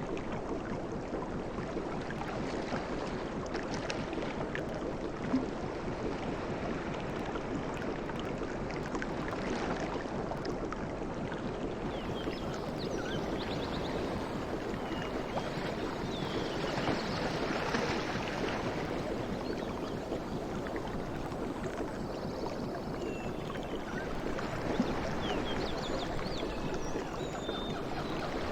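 Sea waves washing continuously, with a louder swell a little past halfway.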